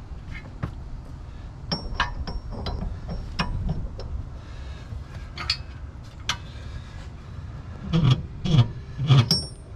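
Steel clinks and clanks from a Blue Ox BXR2100 gooseneck adapter hitch being handled and its height adjusted. There are scattered knocks, a few ringing metal clinks about two to three seconds in, and heavier knocks near the end.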